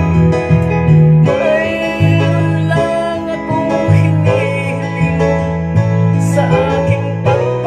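A man singing a Tagalog folk song over guitar-led accompaniment with a steady bass line; his voice comes in about a second in.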